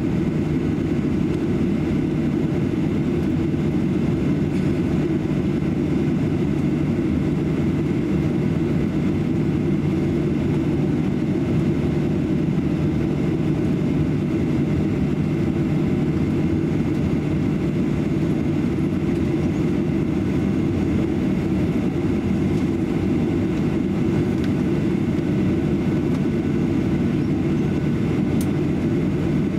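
Steady cabin noise inside a Boeing 737-800 taxiing, its CFM56-7B engines at idle: an even low rumble with a faint high whine held on one pitch.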